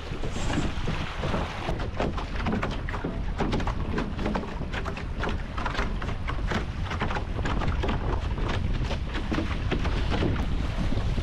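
Wind buffeting an action camera's microphone and water rushing past a sailing catamaran's hulls, with many quick, sharp patters of water drops striking the camera housing.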